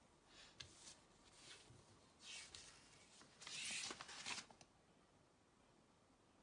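Faint scratchy rustling and handling noises in a handful of short bursts, with a few light clicks. The longest and loudest burst comes about three and a half seconds in.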